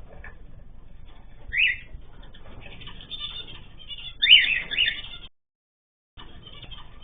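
Short chirps from caged pet birds: one about one and a half seconds in and two close together around four seconds in, over a low background hiss. The sound then cuts out completely for about a second near the end.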